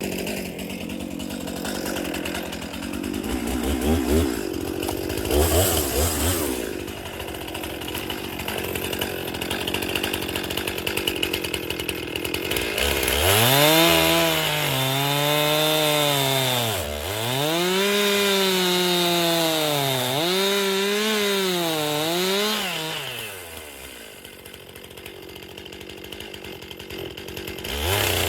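Stihl chainsaw cutting a frozen dead tree: it runs at a lower level at first, then about halfway through goes to full throttle with a strong high engine note that sags and recovers several times as the chain loads up in the cut, before easing back off near the end.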